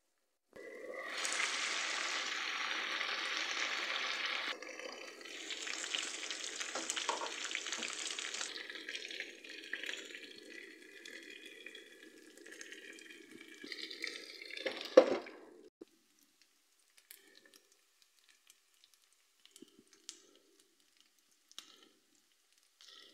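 Chicken pieces sizzling as they fry in their own fat in a nonstick frying pan. The sizzle starts suddenly about half a second in, is loudest for the first few seconds, then eases and ends with a sharp knock near fifteen seconds, after which only a few faint clicks remain.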